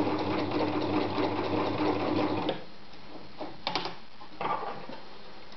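Privileg 360 Voll-Zickzack Superleicht domestic sewing machine running at a steady speed, sewing a straight stitch through knit fabric, then stopping about two and a half seconds in. A few short knocks and rustles follow.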